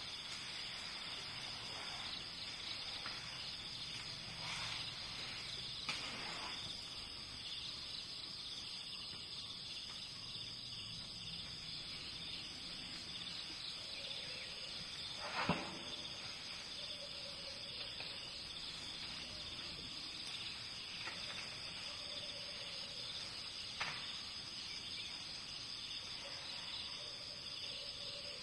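Steady chirring of insects over forest ambience, with a few sharp clicks, the loudest about halfway through.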